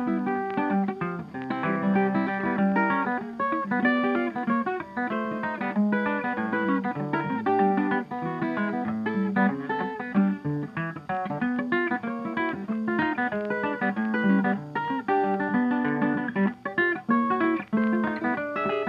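Background music: plucked guitar playing a quick, busy run of notes throughout.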